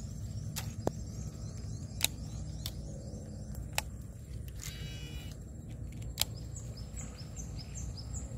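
Swamp-forest ambience over a steady low rumble: runs of quick, high, falling chirps from wildlife, one short buzzy call about five seconds in, and five sharp clicks, the loudest about two and six seconds in.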